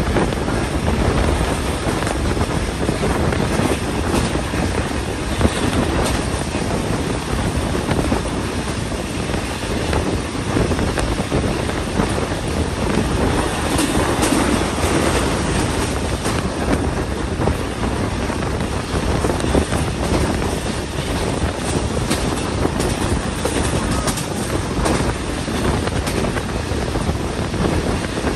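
Passenger train running along the track: a steady rumble and rattle of wheels on rail, with wind noise.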